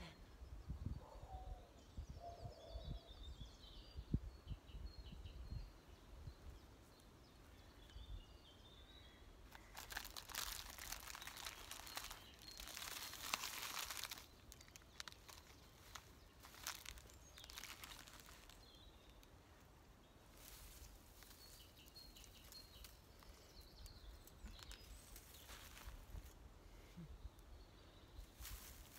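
Quiet woodland ambience with faint birds chirping, and rustling, crinkling handling noise for a few seconds in the middle, with a few shorter rustles later.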